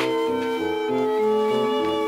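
Gentle background music: held melodic notes moving over a slow bass line.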